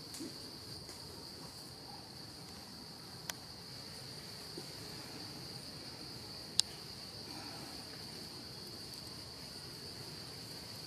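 Steady high-pitched insect chorus, a continuous even drone. Two sharp clicks come about three seconds and six and a half seconds in, the second louder.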